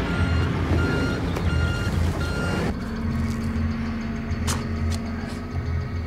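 Tense electronic underscore: short beeps repeat about every half second over a pulsing low bass. About three seconds in the beeping stops abruptly, and a low held note with a few sharp ticks takes over.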